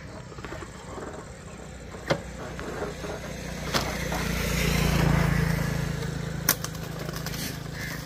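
A motor vehicle passing by: its engine hum swells to a peak about five seconds in, then fades. A few sharp clicks sound along the way.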